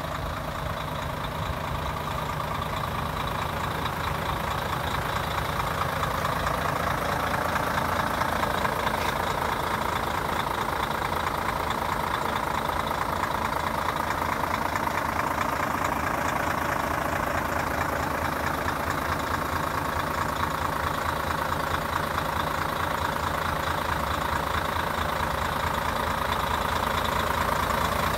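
Volvo FH500 truck's 13-litre six-cylinder diesel engine idling steadily, a low even running note that grows a little louder over the first several seconds.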